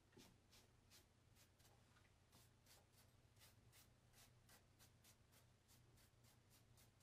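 Near silence: quiet room tone with a low hum and faint, even ticks about two or three times a second.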